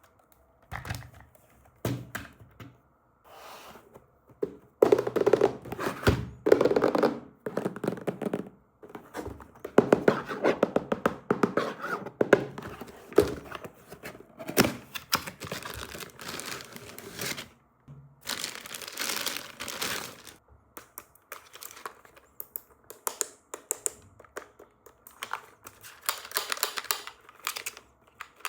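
Toy packaging being handled and torn open. There is crinkling and tearing, with scattered knocks and thunks coming in irregular spells.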